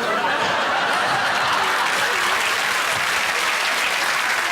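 Studio audience applauding steadily, with a little laughter mixed in.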